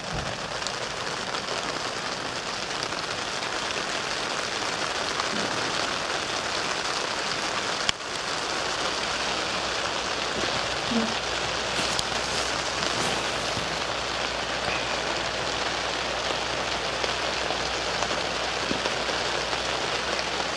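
Steady rain falling on a tent, an even hiss of drops on the fabric, with one short click about eight seconds in.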